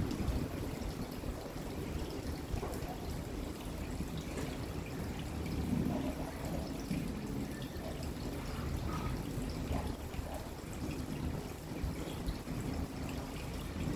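Steady rain falling, with water trickling and pouring as it runs off.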